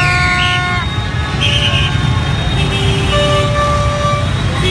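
Crowd of motorbikes in heavy street traffic, engines rumbling steadily. Horns honk over it: one long blast in the first second, then more held horn tones a couple of seconds later.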